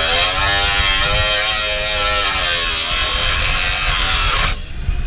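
Power tool cutting into the steel shell of a BMW E46's rear muffler. Its buzzing pitch sags and recovers as it bites into the thick metal, and it cuts off about four and a half seconds in.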